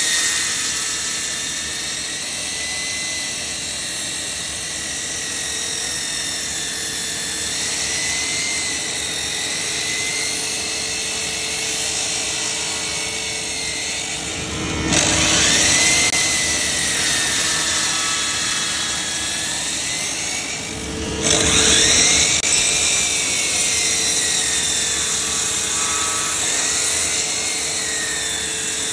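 DeWalt miter saw running with a steady whine that wavers in pitch, its spinning blade cutting slowly down through a thick wooden board. The cutting noise grows louder twice, about halfway through and again a few seconds later.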